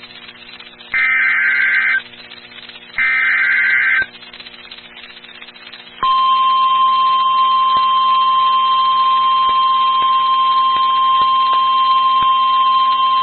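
NOAA Weather Radio emergency alert (EAS/SAME) header: two harsh one-second bursts of digital data about a second apart. About six seconds in, the steady single-pitch 1050 Hz Weather Radio warning alarm tone starts and holds, signalling that a warning (here a severe thunderstorm warning) is about to be read.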